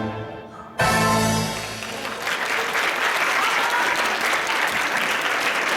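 Russian folk-dance music stops, then ends on a final held chord about a second in. An audience applauds after it.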